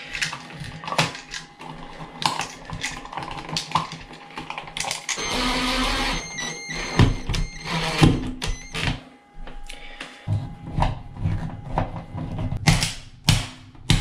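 Plastic clicks and knocks as a USB outlet is pushed into an old-work electrical box. About five seconds in, a cordless drill-driver runs for about a second and a half to drive the outlet's mounting screws. Near the end come sharp snap clicks as the cover plate is pressed on.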